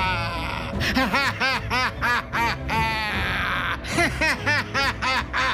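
Anime villain's drawn-out maniacal laugh: a long, fast run of loud "ha ha ha" syllables, each arching up and down in pitch, with a brief wavering stretch near the start and again about three seconds in.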